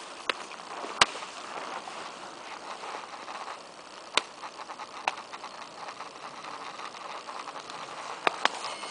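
Rustling of someone walking briskly through ferns and undergrowth, with a few sharp cracks, the loudest about a second in.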